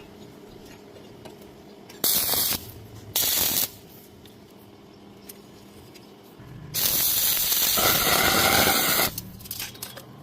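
Electric welding arc hissing in short bursts: two brief tacks of about half a second each, then a longer run of about two and a half seconds.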